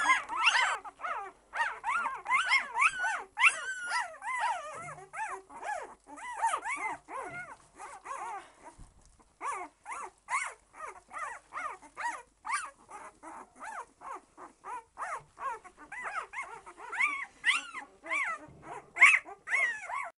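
Very young Irish Setter puppies squeaking and whimpering in many short, high, wavering cries, several a second, while their mother licks them clean. The cries thin out briefly near the middle, then resume just as rapidly.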